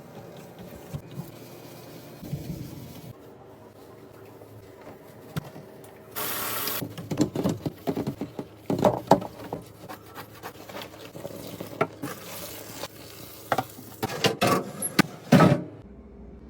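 Close-up handling sounds of fridge cleaning and restocking: quiet rubbing, a short hiss about six seconds in, then a busy run of clicks and knocks that stops about a second before the end.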